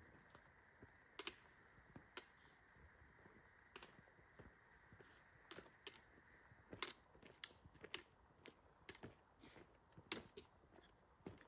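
Faint, irregular clicks and taps of a hiker moving over bare rock, roughly one a second, some in quick pairs, over a low steady hiss.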